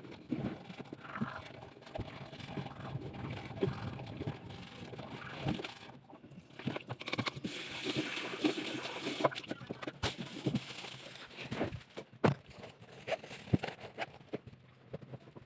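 Teeth being brushed with a toothbrush. About six seconds in come rinsing and spitting over a sink with water splashing, then a few scattered knocks and handling sounds.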